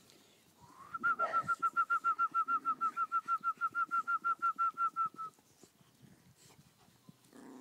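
A bird calling: a rapid, even series of about thirty short, identical whistled notes, around seven a second, lasting about four seconds and then stopping.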